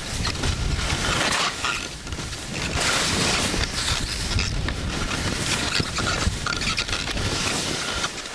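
Skis hissing and scraping over snow at speed, swelling and easing every second or so as they turn, with wind buffeting the microphone in a steady low rumble.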